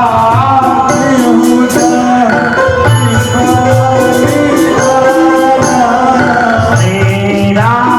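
Devotional song: a voice singing a gliding melody over held instrumental notes, a steady hand-drum beat and bright small-cymbal strikes.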